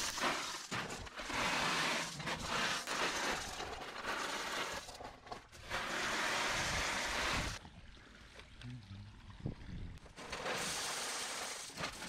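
Coarse 16–32 mm gravel tipped from a wheelbarrow, the stones pouring and rattling onto the path in spells, with a quieter pause about eight seconds in.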